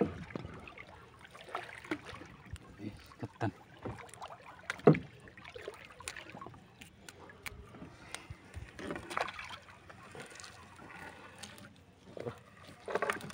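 Wet gill net being hauled by hand into a small fishing boat: irregular knocks, clicks and rustles of net, floats and fish against the boat, with one sharp knock about five seconds in.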